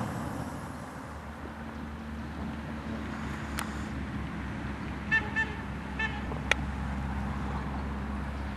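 Steady low rumble of a car driving, heard from inside the vehicle. Three short beeps come about five to six seconds in, with a couple of sharp clicks.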